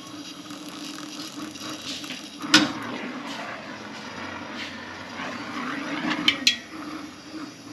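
Brazing torch flame hissing steadily while copper refrigerant tubing is brazed. A single loud sharp knock comes about two and a half seconds in, and two lighter knocks come close together near the end.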